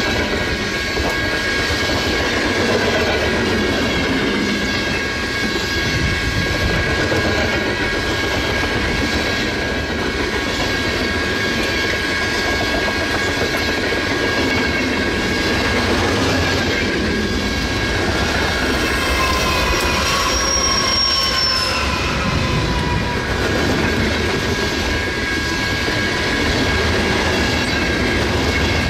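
Freight train of autorack cars rolling past at speed: a steady rumble and clatter of wheels on rail, with a high steady squeal from the wheels. A brief squeal falls in pitch about two-thirds of the way through.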